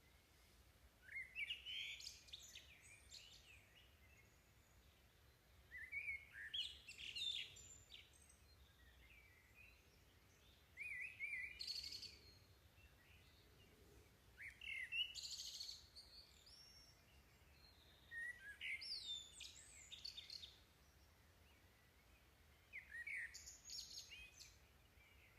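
A songbird singing short, chirpy phrases of high, sliding notes, one every four or five seconds, over quiet outdoor background.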